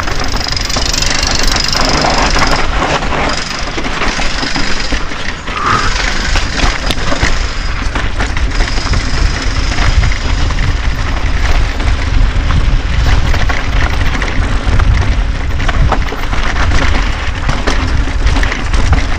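YT Decoy Core 3 mountain bike rattling down a rocky dirt trail: tyres crunching over loose stone and gravel, with frequent knocks and clatter from the bike, under a steady wind rumble on the camera microphone. A high buzz runs through the first several seconds.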